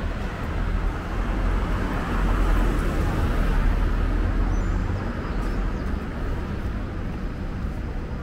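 Street traffic with a car's engine rumble swelling as it passes close by, loudest about two to three seconds in, then fading.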